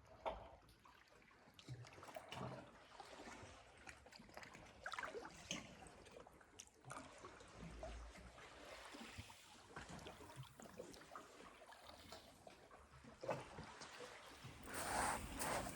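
Calm sea water lapping and trickling at the shore, faint and irregular, with a louder wash of a small wave near the end.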